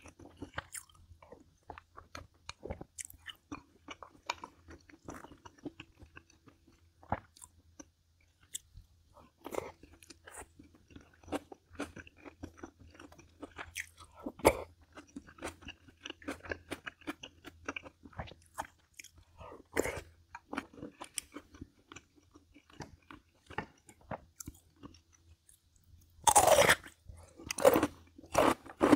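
Close-miked mukbang eating: wet chewing with many small crunchy bites, the crunches getting louder and denser near the end.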